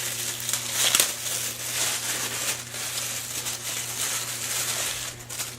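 Plastic wrapping crinkling and crackling as it is pulled and crumpled off a subwoofer, with a sharper crackle about a second in.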